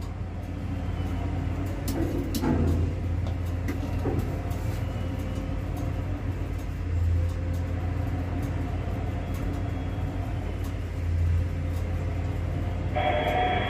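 Steady low rumble of construction-site machinery, swelling briefly three times, with a few faint knocks.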